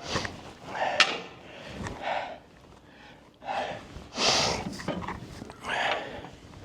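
A man breathing hard in about five heavy, breathy exhales with pauses between, with a sharp click about a second in.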